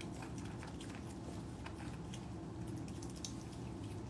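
Otter chewing dry food pellets: an irregular run of crisp crunches over a steady low hum.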